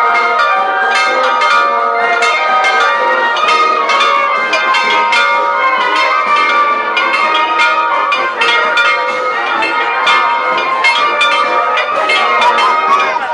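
A peal of bells ringing fast, several strikes a second, each tone ringing on and overlapping the next.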